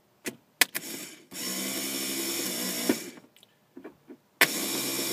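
Rebuilt Kawasaki 28 hp lawnmower electric starter motor bench-tested off jumper cables: a few sharp clicks as the clamp makes contact, then the starter spins free twice, each run about a second and a half of steady whirring hum. The owner puts its odd cranking sound down to an armature bent at the factory.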